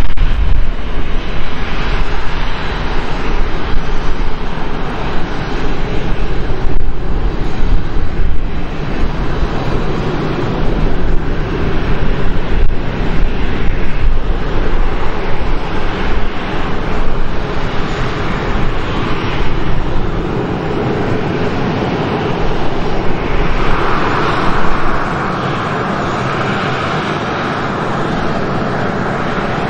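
Boeing 737-300's CFM56 jet engines running at taxi power as the airliner taxis past, a steady jet rush over a low rumble. Late on the low rumble falls away, the overall level drops slightly, and the engines' higher whine stands out.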